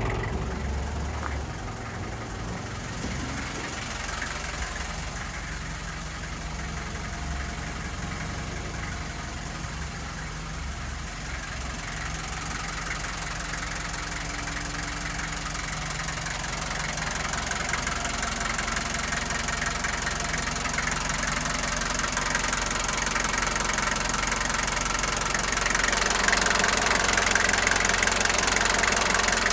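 Toyota Coaster's 3B four-cylinder diesel engine idling steadily, louder near the end close to the open engine bay.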